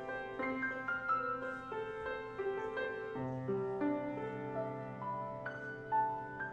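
Grand piano played solo, a steady flow of notes ringing over one another, with a new low bass note coming in about three seconds in.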